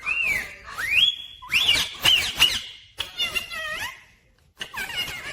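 Ringneck parrot calling: two rising, whistled notes at the start, then a run of louder, quickly changing calls, a short pause, and a last burst of calls near the end.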